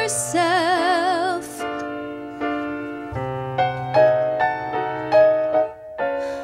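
A woman sings a held note with wide vibrato, the end of a musical-theatre line. About a second and a half in it stops, and the piano plays on alone in slow single notes and chords.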